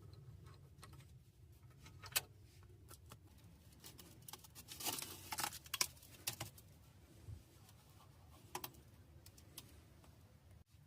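Faint scattered clicks and light metallic clinks of hand tools and loose parts being handled, with a denser run of clinks about five seconds in.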